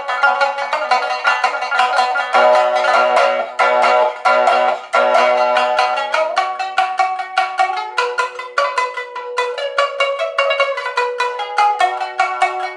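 Tsugaru shamisen played solo with a bachi plectrum: a quick run of struck notes, each stroke with a sharp percussive attack over ringing string tones.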